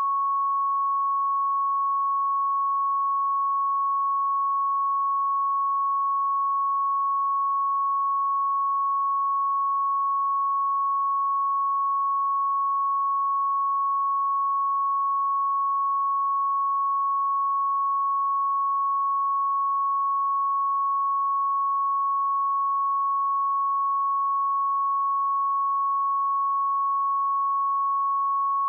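A pure 1106 Hz sine-wave test tone, held steady at one pitch and level.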